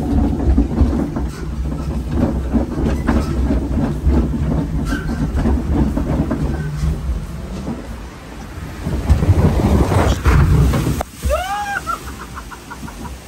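Log flume ride boat rumbling along its water channel, then a loud rush and splash of water about nine seconds in, lasting about two seconds. A short rising-and-falling cry from a rider follows just after.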